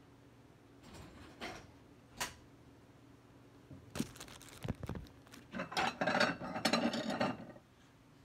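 Plates and dishes clinking and clattering as a plate is fetched from the kitchen cupboard. A few light clicks and knocks come first, then about two seconds of dense rattling clatter near the end.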